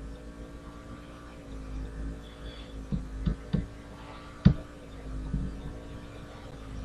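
Steady electrical hum under a few short mouse clicks, four in quick succession around the middle, the loudest a little after four seconds.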